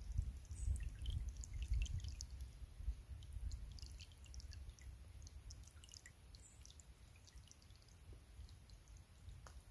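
Shallow stream trickling over leaves and stones, with many small, quick drips and splashes. A low rumble underneath is strongest in the first three seconds.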